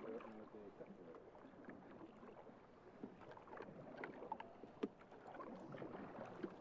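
Faint water lapping and gurgling against a drift boat's hull on a moving river, with scattered small knocks and ticks.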